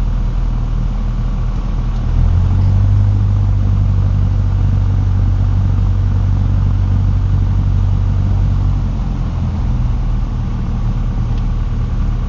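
Cessna 150's four-cylinder Continental O-200 engine running steadily. Its low drone grows louder about two seconds in and eases back again at about nine seconds, a change in engine power.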